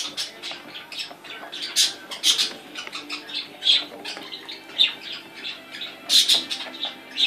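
African grey parrot digging head-down in a plastic basket of toys, giving a quick, irregular run of short, sharp squawks and knocks, several a second, loudest about six seconds in.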